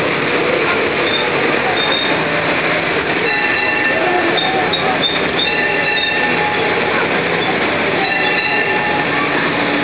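Open carriage of a trackless tourist road train running along a street: a steady rumble and rattle of the moving carriage, with short high squeaks now and then.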